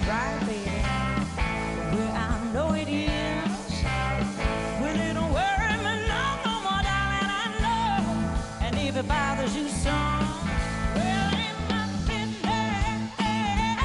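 Live blues-rock band playing, with drums and bass under a lead line of bent, wavering notes.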